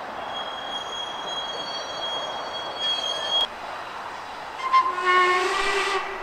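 A high, thin single-note whistle held for about three seconds and cut off sharply, then about a second later a lower-pitched steam locomotive whistle sounds for about a second and a half. This is a guard's whistle followed by the engine whistling in reply, the usual signal before a train departs.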